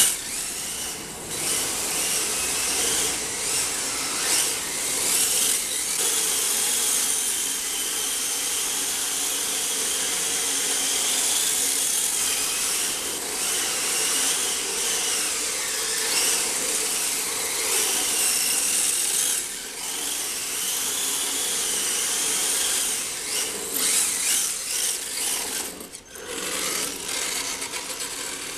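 Radio-controlled car's electric motor whining, its pitch rising and falling as the car speeds up and slows down, over a steady high hiss. The sound drops away briefly twice, once near the end.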